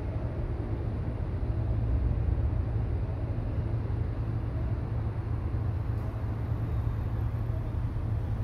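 Steady low rumble of ambient noise beneath an elevated viaduct, with no distinct events.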